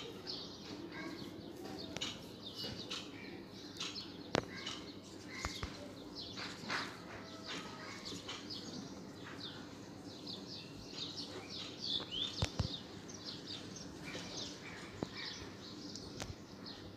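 Small birds chirping over and over in quick, short downward notes, with a few sharp clicks, the loudest about twelve seconds in.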